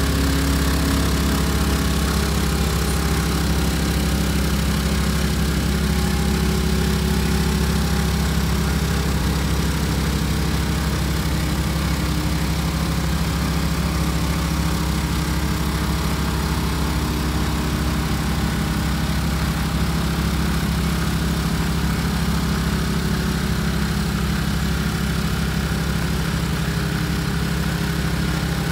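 Bitimec Wash-Bots truck wash machine running with a steady, even engine drone as its brush unit works along the side of a semi-trailer.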